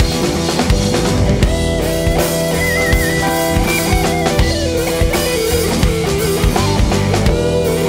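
A live rock band playing: drum kit, electric keyboard and a semi-hollow electric guitar, with a melody line that wavers and bends in pitch over sustained chords.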